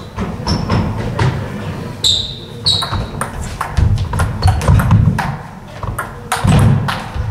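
Table tennis rally: the plastic ball clicking off bats and the table in an irregular run of sharp knocks, with a few shoe squeaks on the wooden floor, in a reverberant hall with voices murmuring.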